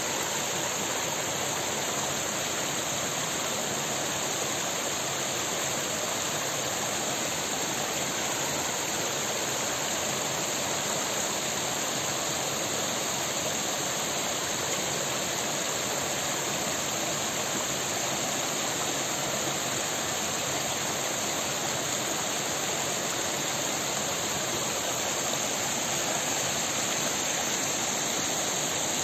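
Small mountain stream running over rocks and little cascades, a steady, unbroken wash of water noise.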